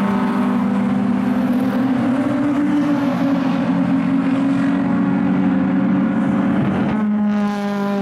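Engines of a pack of historic saloon race cars at racing revs, a loud steady engine note. About seven seconds in the note changes as the sound shifts to another engine tone.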